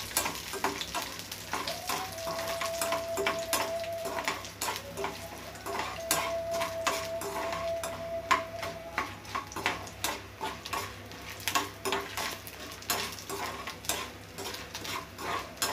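Tempering of mustard seeds, urad dal, chana dal and peanuts sizzling as they fry in oil and ghee in a metal kadai, while a spoon stirs and scrapes against the pan in frequent sharp clicks.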